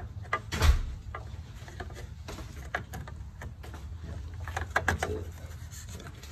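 Scattered clicks and knocks of a plastic Homelink module being handled against the car's metal front bracket during fitting, with one louder clack about half a second in and a quick run of knocks near five seconds.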